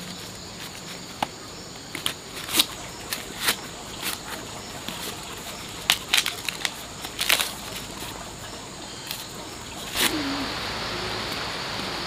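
Irregular sharp snaps and cracks, then about ten seconds in a steady hiss with a few short, low animal calls.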